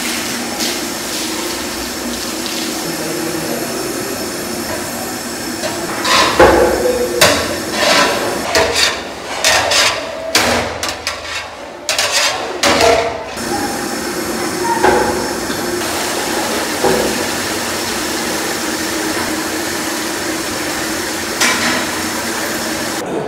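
Steady hum of a large kitchen, broken in the middle by a quick run of sharp metal clanks and knocks from big steel cooking vessels handled over a steaming rice cauldron, with one more knock near the end.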